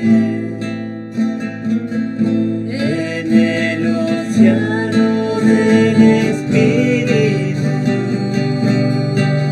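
Two acoustic guitars strummed and picked together, with a voice singing a slow praise song over them from about three seconds in.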